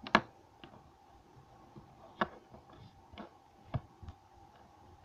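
Plastic toy figures tapping and knocking on a hard tabletop as they are moved by hand: a sharp tap just after the start, then further taps about two and four seconds in, with a few fainter clicks between.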